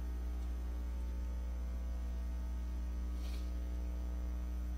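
Steady low electrical mains hum with a stack of higher overtones, carried on the recording. There is a faint short hiss about three seconds in.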